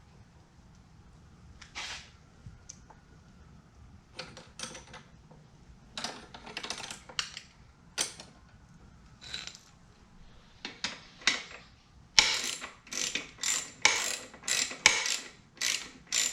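Ratchet wrench clicking through short strokes while tightening muffler mounting bolts, scattered at first, then a quicker run of about two strokes a second near the end, the loudest part.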